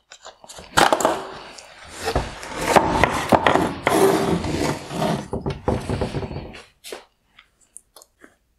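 Plastic headlight housing being handled and shifted on a wooden workbench. For about six seconds there are knocks, scrapes and rustling as the wire harness connector is pushed through the housing and the wiring drawn out, followed by a few light clicks.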